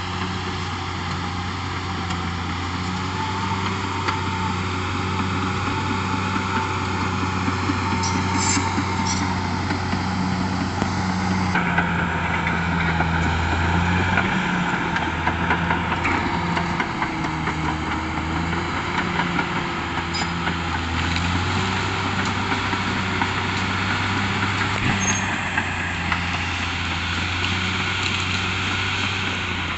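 Caterpillar D6R XL bulldozer's diesel engine running steadily under working load, its note shifting slightly as the load changes.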